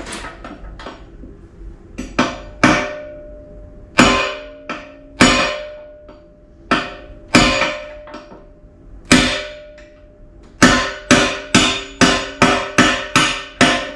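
Mini sledgehammer striking steel as a pin is driven into an excavator bucket tooth. Each blow gives a sharp metallic ring. The blows come a second or so apart at first, then speed up to a quick run of about eight near the end as the pin goes home.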